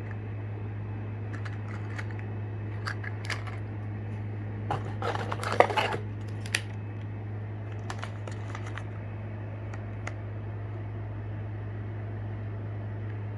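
Fishing lure packaging being handled and opened: scattered plastic crinkles and clicks, busiest about five to six seconds in, over a steady low hum.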